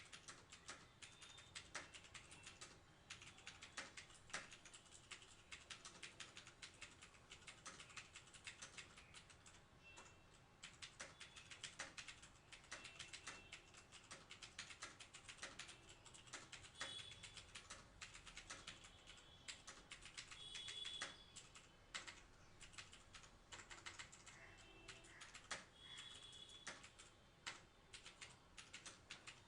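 Steady, fast typing on a TVS Gold mechanical keyboard with clicky Cherry MX Blue switches: a dense, uneven stream of sharp key clicks.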